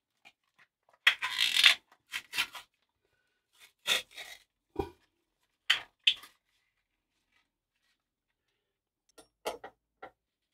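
Toothpaste tube and toothbrush handled over a bathroom sink: a string of short crinkling scrapes and rustles, the longest about a second in. Near the end come a few light clicks as a toothbrush is set into a toothbrush holder.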